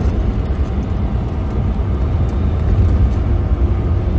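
Semi-truck's turbocharged engine and road noise heard inside the cab while driving: a steady low rumble.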